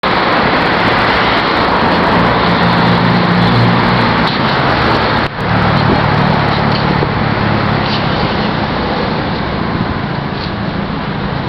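Steady road traffic noise from passing cars, with a low engine hum underneath that briefly dips about five seconds in.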